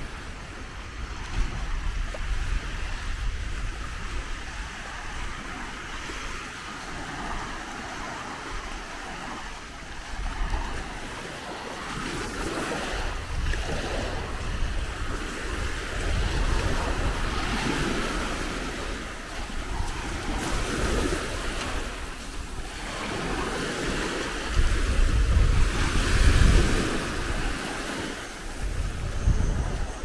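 Sea waves breaking and washing up the beach, the wash swelling and falling back every few seconds and loudest near the end, with wind rumbling on the microphone.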